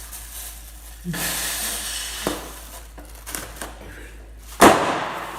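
A short hissing noise about a second in, a sharp click, then one loud sudden bang near the end that dies away within half a second.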